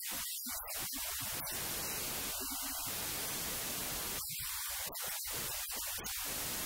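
Steady static hiss, with no speech or other distinct sound.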